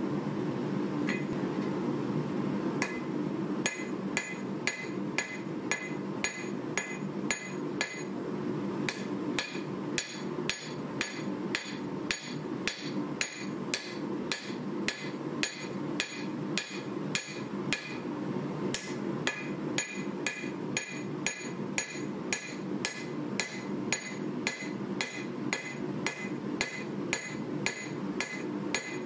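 Hand hammer striking a red-hot 1095 carbon-steel knife blade on an anvil at about two blows a second, each blow ringing out, with two brief pauses. A steady hum runs underneath.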